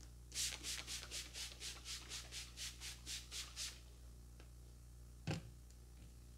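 A quick run of about fourteen short, even hissing strokes at the client's face, about four a second for a little over three seconds, then a single sharp click near the end.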